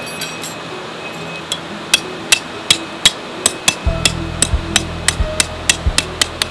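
Tent stake being driven into the ground with a hammer: sharp metallic strikes that start slowly and speed up to about five a second. A low steady hum joins about four seconds in.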